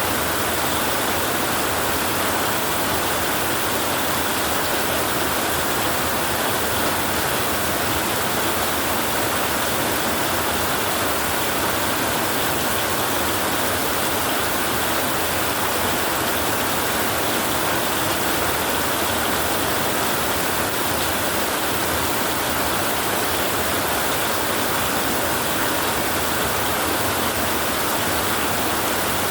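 Heavy rain falling on a tin roof: a dense, even hiss that holds steady, with no separate drops standing out.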